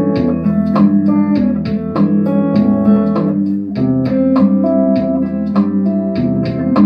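Steel-string acoustic guitar being picked: a steady run of plucked notes ringing over a low bass line.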